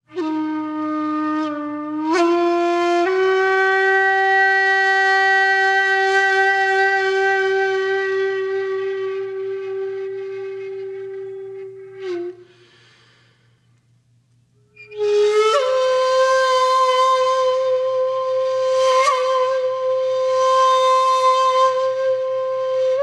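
Slow background music on a single wind instrument playing long held notes. It steps up in pitch over the first few seconds and holds a note that fades out about halfway. After a few seconds of near silence it comes back on a higher held note with small ornaments and a wavering near the end, over a faint steady low hum.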